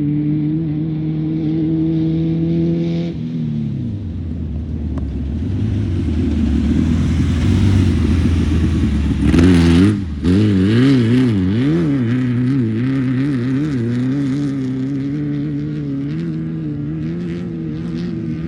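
Off-road race car's air-cooled Volkswagen flat-four engine running at steady revs, easing off about three seconds in. About nine seconds in there is a loud noisy surge, after which the revs swing quickly up and down for a few seconds and then settle.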